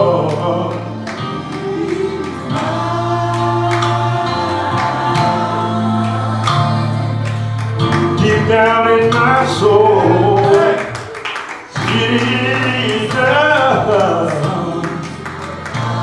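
Gospel song: voices singing over steady held low instrumental notes.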